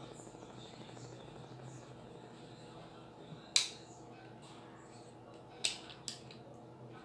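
Faint scratching of a colored pencil on paper, then a few sharp clicks, the loudest about three and a half seconds in, as the pencil is put down and another picked up.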